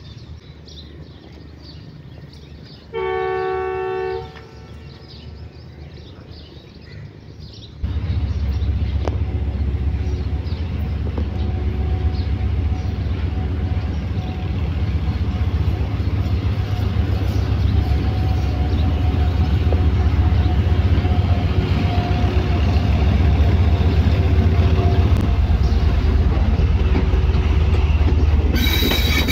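Pakistan Railways ZCU-30 diesel locomotive departing: its horn gives one blast of about a second, a few seconds in. About eight seconds in a loud, low engine rumble starts suddenly and grows as the train heads out, with wheel and rail noise rising near the end as the locomotive comes close.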